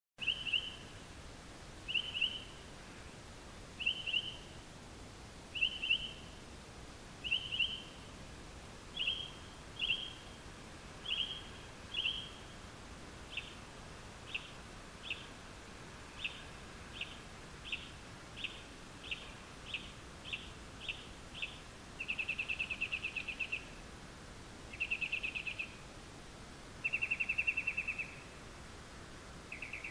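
A bird singing at night in changing phrases. A short chirping note repeats about every two seconds, then gives way to quicker single notes, then to several longer trills near the end.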